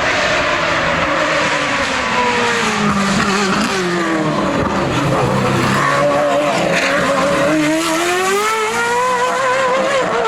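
Hill-climb race car engine, loud, coming off the throttle with its pitch falling and a few quick downshift blips, then accelerating hard with a long steadily rising note.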